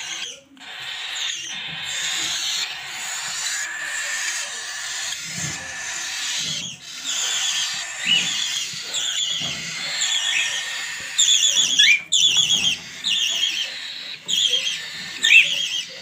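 Young budgerigars chirping: rapid, high, repeated chirps with short rising notes. The chirps get louder and come in bunched bursts over the second half.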